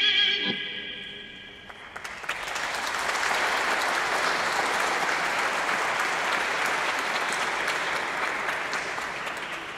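A piece of music dies away on a held chord in the first couple of seconds, then an audience applauds, the clapping fading out near the end.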